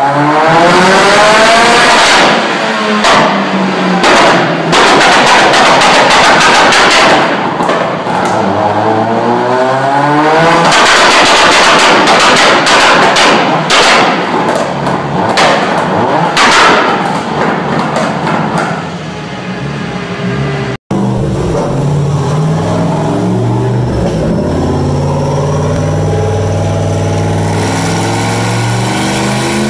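Mitsubishi Lancer Evolution's turbocharged four-cylinder engine revving hard on a chassis dyno, its pitch sweeping up and down with stretches of rapid crackling bangs. After a cut about 21 s in, a Chevrolet Corvette's V8 runs on a dyno with a lower, steadier note that slowly climbs.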